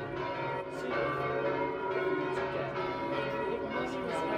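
Church bells in the tower of the Basilica of St Francis, Assisi, pealing: several bells struck irregularly, their tones overlapping and ringing on without a break.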